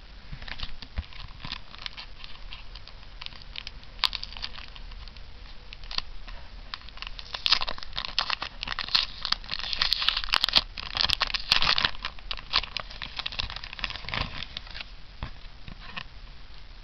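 Thin plastic wrapping being handled and crinkled, a run of small crackles that thickens into a denser, louder spell of crinkling about halfway through, then thins out again.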